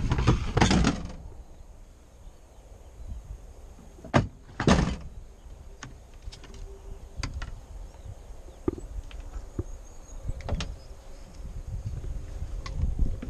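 Chainsaws and gear being handled in a car boot: knocks and clunks as saws are lifted and set down on the boot floor and tailgate, loudest near the start and twice about four seconds in, with small clicks and rattles between.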